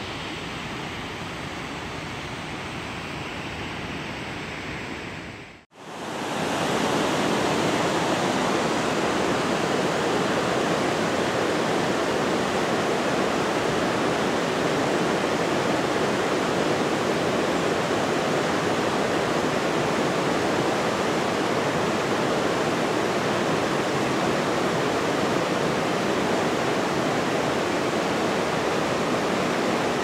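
Steady rush of falling and running water from a small waterfall over a weir. The sound cuts out briefly near six seconds in, then returns as a louder, steady rush of whitewater rapids in a rocky gorge creek.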